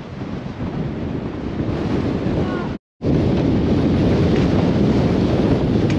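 Strong wind buffeting the camera microphone in a steady low rumble. It breaks off for a moment near halfway and comes back louder.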